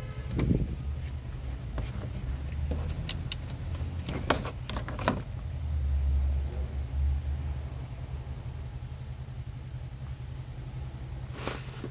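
Plastic wiring connector and wire leads being handled, giving several sharp clicks and rattles over a steady low rumble.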